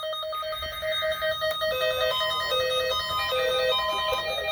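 Electronic weather-alert receiver tones: a steady, rapidly pulsing beep, joined from under two seconds in by a two-note hi-lo alarm that alternates about every 0.4 s. These are alert tones set off by a severe-weather broadcast that was sent out toned.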